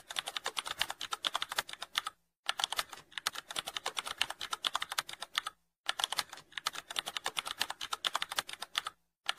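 Computer keyboard typing sound effect: rapid key clicks, many a second. It stops briefly about two seconds in, again just past halfway, and again near the end.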